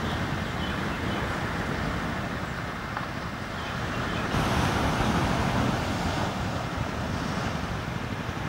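Surf washing onto a sandy beach, mixed with wind rumbling on the microphone; the wash swells about four seconds in.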